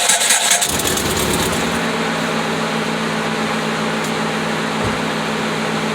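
2006 Mitsubishi Outlander engine catching at the end of a long crank, less than a second in, then idling steadily. The long crank is usually a starter issue on this model.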